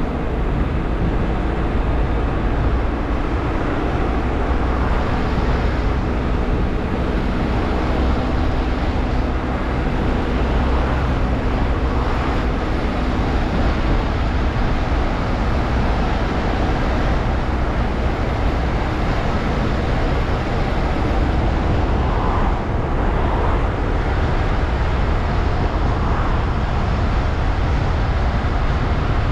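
Car on the move: a steady mix of engine and tyre-on-road noise, dominated by a deep rumble.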